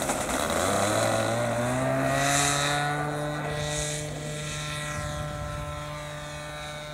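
O.S. Max 46 AX two-stroke glow engine of an RC CAP 232 model plane throttling up for takeoff: its buzz rises in pitch over the first two seconds or so, then holds steady and slowly fades as the plane climbs away.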